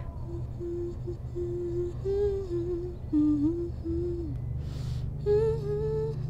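Slow, soft film score: a wordless melody of long held notes with gentle bends over a steady low drone. A brief soft rush of noise comes about four and a half seconds in.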